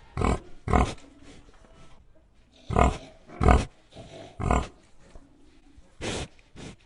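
Pig grunting in short bursts, about seven grunts in uneven groups: two near the start, three in the middle and two near the end.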